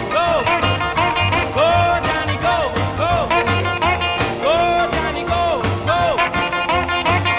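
Music played back from cassette on a Technics RS-M205 deck, taken directly from its output: an upbeat tune with a steady bass beat and a melody that slides up and down in pitch.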